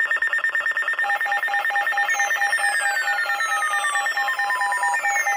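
Weather alert radios sounding their alarm tones for a new severe thunderstorm warning. A high warbling tone runs throughout, a lower beep pulsing about four times a second joins about a second in, and repeated falling sweeps begin about two seconds in.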